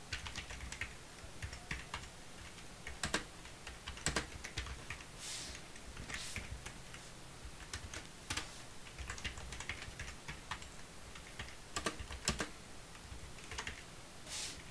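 Computer keyboard being typed on in irregular runs of keystrokes, with a few louder key strikes standing out.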